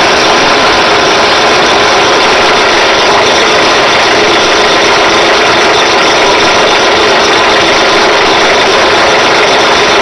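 A drill press running steadily at speed, spinning an oversized valve guide in its chuck while a hand file is held against the turning guide to size it down.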